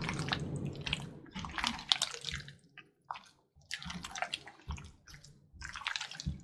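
Chicken pieces being mixed through a wet masala marinade in a bowl: irregular wet squelching and slapping in several spells with short pauses.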